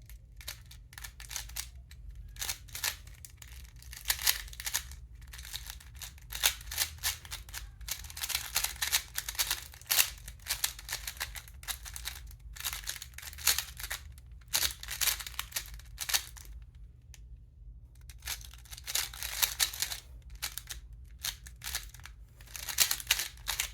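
3x3 magnetic speed cube being turned rapidly by hand: quick runs of clicking layer turns in flurries, with a short pause about seventeen seconds in.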